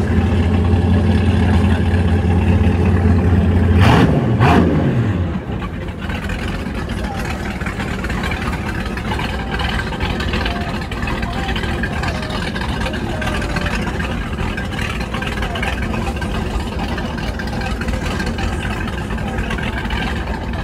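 Triple Mercury 350 outboard engines on a center-console boat running with a loud, steady low drone. About four seconds in there are two sharp clicks and the pitch falls away as the throttle comes back. After that the engines run more quietly and steadily.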